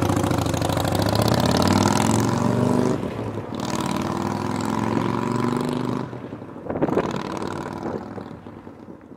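Motorcycle engine running as the bike pulls away down the street. The sound dips briefly about three seconds in, drops again at about six seconds, then fades out.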